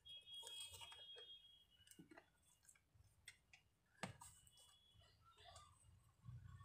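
Near silence with a few faint clicks, the strongest about four seconds in, from a multimeter and its test probes being handled.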